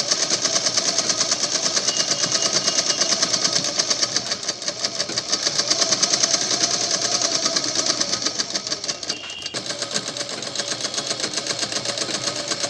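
Manisha sewing machine stitching at speed, a rapid, even clatter of needle strokes as fabric is fed through in a curved seam. The machine eases briefly about nine seconds in, then carries on.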